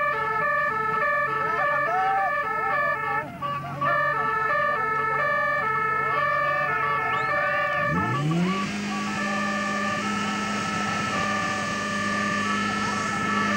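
An alternating two-tone siren sounds. About eight seconds in, a portable fire pump's engine starts, revs up quickly and holds a steady high speed as the team drives water into the hoses.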